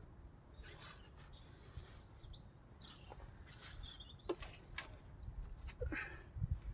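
Faint outdoor ambience: a small bird chirps briefly twice, with scattered light knocks and clicks and a low rumble of wind.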